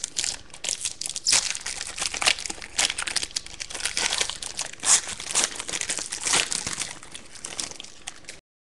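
Plastic wrapping on a trading card box being torn open and crinkled by hand: a dense, irregular crackle that stops abruptly near the end.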